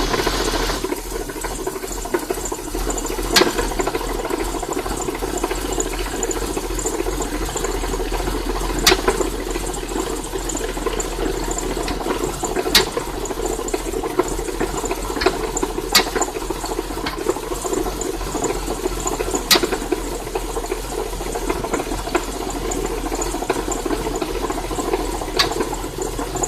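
BMW E46 engine idling cold, with a weird tapping from the intake manifold area: a fast light ticking over the steady running, and a sharper tap every few seconds at irregular intervals.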